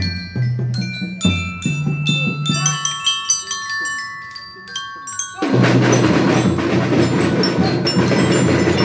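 Children's drum band playing: ringing glockenspiel notes over low drum tones, thinning out after about three seconds. About five and a half seconds in, a sudden loud, noisy passage starts and carries on to the end.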